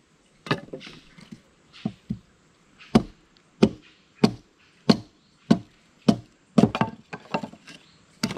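Machete chopping and splitting wooden sticks against a plank platform: about a dozen sharp blows, falling in a steady rhythm of roughly one every half-second or so through the middle.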